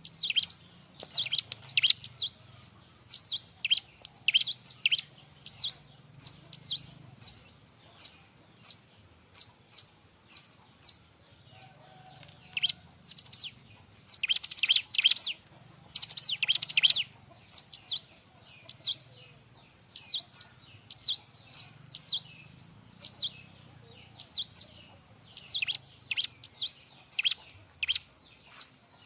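Bar-winged prinia (ciblek) singing in full voice: a steady string of sharp, high chips that sweep downward, one or two a second, broken about halfway by two short, dense buzzy rattles.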